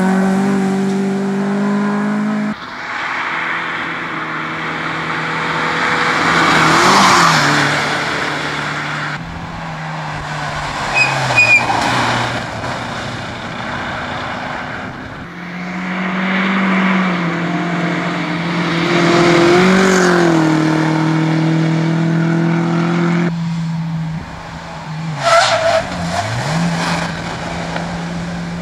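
Small hatchback rally cars, among them a Honda Civic and a Škoda Felicia, driven flat out one after another: high-revving engines passing, their pitch rising and falling with gear changes. A few short sharp cracks come about a third of the way in and again near the end.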